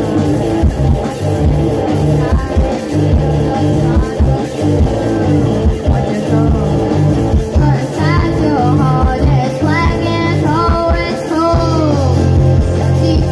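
Live rock band playing loudly: electric guitars, bass guitar and a drum kit through a PA. A boy's lead vocal comes in about eight seconds in.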